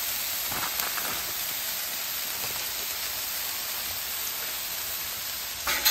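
Diced ham, bacon, sausage, peppers, onions and mushrooms sizzling steadily on a hot flat-top griddle, an even fine hiss. A brief louder sound comes near the end.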